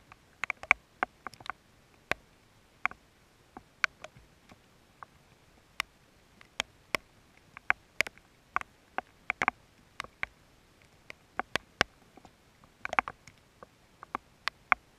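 Raindrops striking close to the microphone: sharp, irregular ticks, two or three a second, with little else between them.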